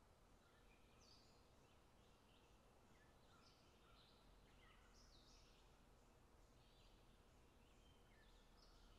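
Near silence: a faint steady hiss with scattered faint, short high chirps.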